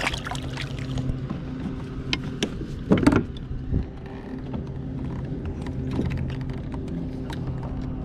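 Scattered clicks and knocks of gear being handled in a kayak, with a louder clatter about three seconds in, over a steady low hum.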